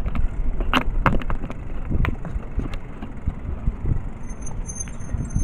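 Wind buffeting the camera microphone while riding along a road, with uneven low rumble and a few knocks.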